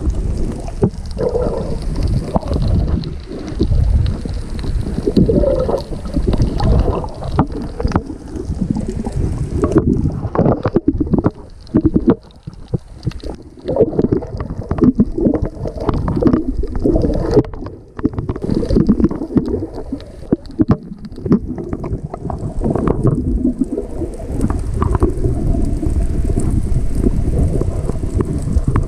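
Muffled, low sloshing and rumbling of seawater moving around a GoPro camera held underwater, rising and falling irregularly, with brief dips about twelve and eighteen seconds in.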